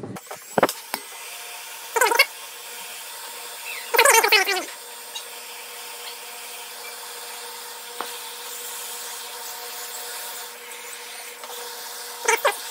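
Heat gun blowing a steady stream of hot air, reflowing the solder under a replacement FPGA chip. It is a steady hiss with a faint whine, broken by a few brief louder clatters, the longest about four seconds in.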